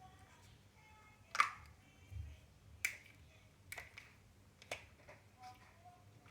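Plastic parts of a CamelBak Eddy+ kids' water bottle clicking together as they are fitted by hand: four sharp clicks, the loudest about a second and a half in, with a dull thump just after two seconds.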